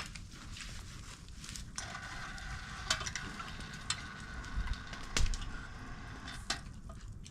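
Food sizzling, a steady hiss with scattered sharp clicks and knocks.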